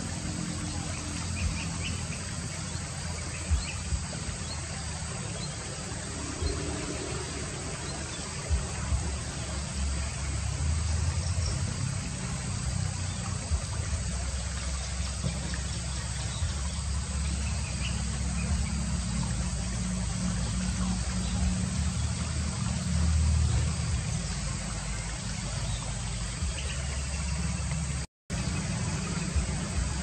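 A steady low rumble with an even hiss throughout, with a few faint, short bee-eater calls now and then. The sound cuts out for a moment near the end.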